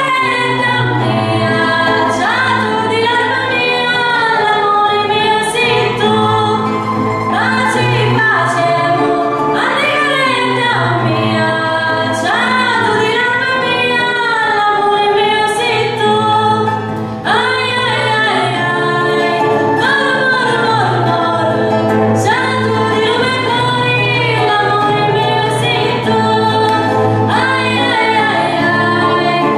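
A woman singing a slow melody into a microphone, holding long wavering notes, accompanied by strummed acoustic guitar.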